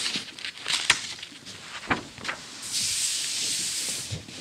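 Pages of a 1940 magazine being handled and turned: a few short crisp paper crackles, then a loud papery swish lasting about a second near the end as the page sweeps over.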